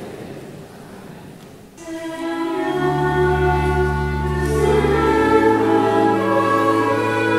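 Church music begins about two seconds in, after quiet church room tone: sustained chords over deep bass notes, played by trumpet and saxophone with the organ.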